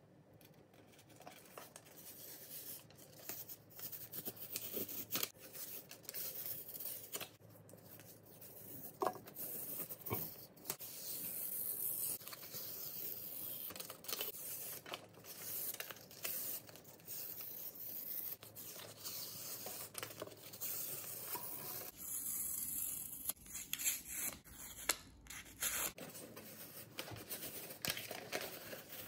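Close-up rustling, rubbing and crinkling of white paper handled by hands, with irregular scratchy crackles: a long strip flexed and curled, then a sheet folded and pressed flat.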